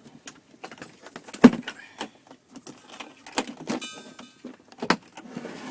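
Handling noises: a run of scattered knocks and clicks, the loudest about a second and a half in, with a brief squeak near four seconds.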